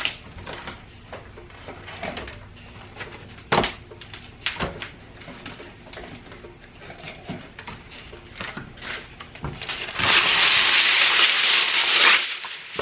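Aluminium foil being pulled off the roll and torn off: a loud crackling rustle lasting about two seconds near the end. Before it come scattered light knocks and clicks of handling.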